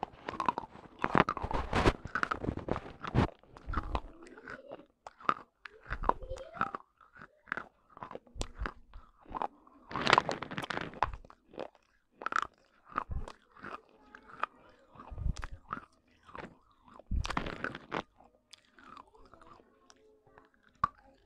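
Pieces of broken baked clay pot being bitten and chewed close to the microphone: sharp, irregular crunches coming in clusters, fewer and fainter near the end.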